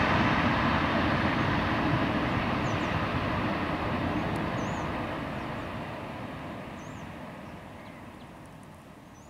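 Boeing 737-800 jet engines and rollout noise as the airliner rolls down the runway just after touchdown, the sound fading steadily as it moves away.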